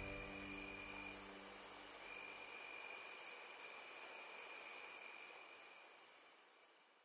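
Crickets trilling in one steady, high, unbroken note, with a fainter lower trill beside it; the chorus fades out near the end.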